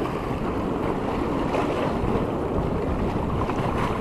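Wind buffeting the microphone: a steady, deep rush with no break.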